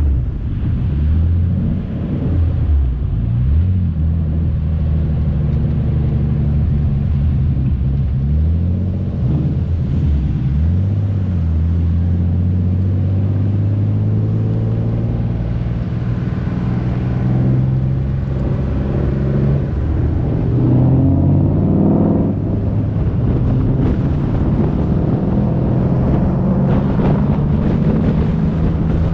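Twin-turbo Nissan 350Z's V6 engine under hard driving, its note climbing and falling several times as the car accelerates and backs off, with a steep climb about two-thirds of the way through.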